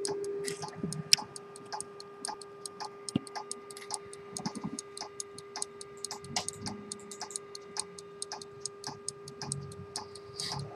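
Jean-Baptiste Baillon verge-escapement fusee pocket watch movement, c. 1770–1790, ticking steadily at about five ticks a second. A steady hum runs beneath it.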